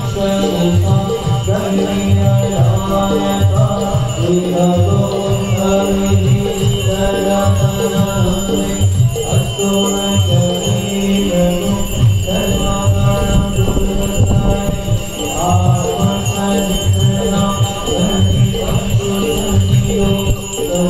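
Devotional Hindu aarti music: voices singing a chant over a steady drum beat of about two strokes a second, with a continuous high jingling above.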